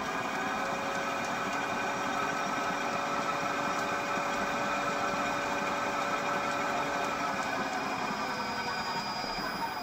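Lexus LS600H hybrid transmission spinning on its own electric motor under inverter control: a steady mechanical whirr with a gear whine. The whine eases lower after about seven seconds.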